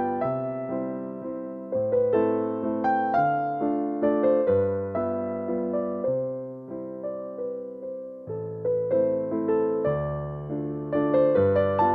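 Background music: a keyboard melody of single struck notes that fade, over low chords that change every second or two.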